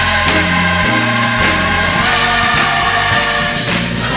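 Gospel choir singing long held chords, with a low bass line stepping between notes underneath.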